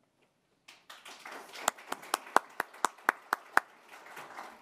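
Audience applauding, starting about a second in, with one pair of hands clapping loudly and evenly about four times a second over the crowd's applause before it dies away near the end.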